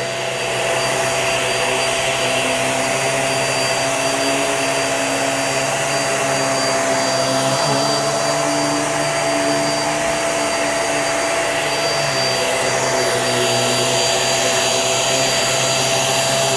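Hoover React QuickLift upright bagless vacuum cleaner running steadily while vacuuming a rug: a motor rush with a steady high whine over it, its lower hum shifting slightly in pitch now and then.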